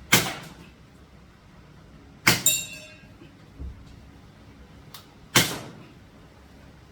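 Airsoft (Action Air) rifle shots: three loud sharp cracks spaced a couple of seconds apart. The middle shot is followed at once by a second crack with a short metallic ring, typical of a BB striking a steel target.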